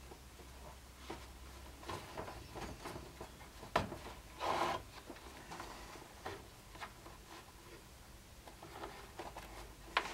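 Hand-stitching leather: quiet rustling and small clicks of needles and thread being worked through a leather scabbard. There is a sharp click about four seconds in, a short rasp just after it, and another sharp click near the end.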